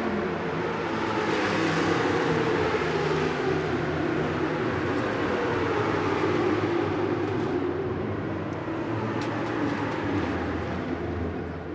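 Racing motorcycle engines running steadily, their pitch sagging slowly through the middle, with a few small sharp clicks near the end.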